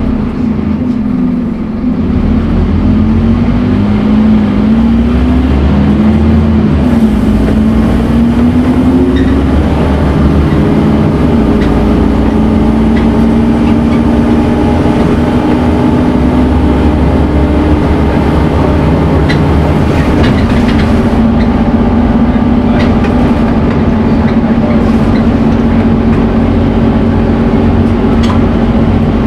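Scania N230UD Omnicity double-decker bus engine pulling under load. Its pitch rises and falls several times over roughly the first twelve seconds, as with gear changes, then holds steady.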